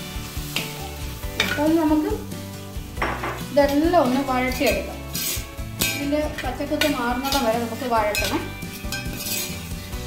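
A steel spoon stirring and scraping duck pieces, onions and spice powder around a metal pot, with repeated clinks against the pot's side and a sizzle of frying. A singing voice with background music runs underneath.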